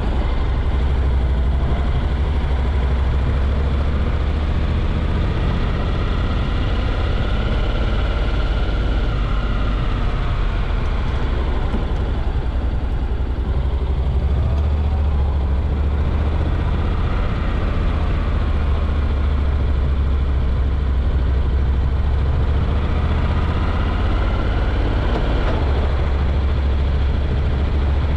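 Vehicle engine running while on the move: a steady low rumble, with the engine note rising and falling twice.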